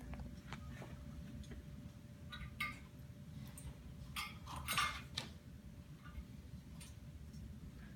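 Small bell being handled by an African grey parrot, with soft clicks and jingles: a few short ones about two and a half seconds in and a cluster around four to five seconds in, over a low steady hum.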